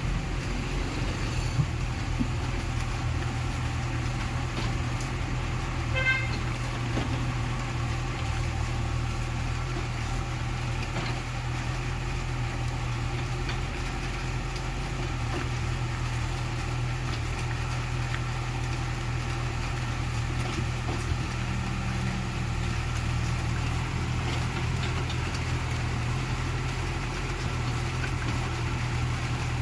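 Komatsu PC81 excavator's diesel engine running steadily as the machine works, a continuous low hum. About six seconds in there is a brief pitched sound, perhaps a horn.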